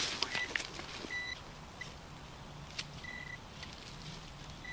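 A metal detector sounding several short, steady, high-pitched beeps on and off, signalling metal in the dug hole. At the start, a hand digging tool scrapes and clicks in leafy soil, which is the loudest part.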